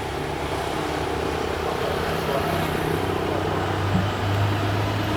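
GE CM22-7i diesel-electric locomotive running, a steady low drone that grows stronger about three seconds in.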